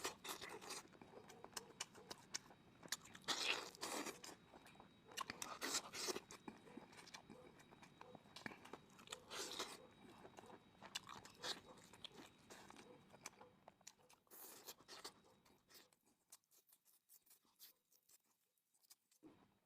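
A person chewing and crunching chicken close to the microphone: a run of crisp, irregular crunches and chews that thins out and fades in the last few seconds.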